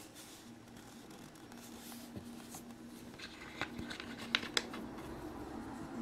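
Metal door lock cylinder parts handled by hand on a wooden tabletop: faint scraping and rubbing, with a few light clicks in the second half, the loudest two in quick succession.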